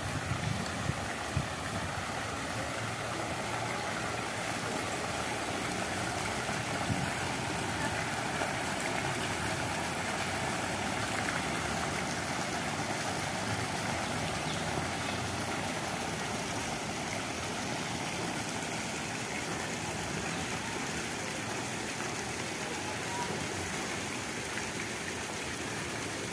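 Fountain water splashing steadily as thin jets fall into a stone basin.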